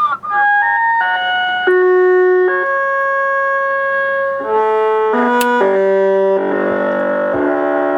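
An electronic horn-like tune from a CB noise toy box sound bite: held chord-like notes that step from pitch to pitch, played out over a CB radio. It is loud and opens with a short warbling blip.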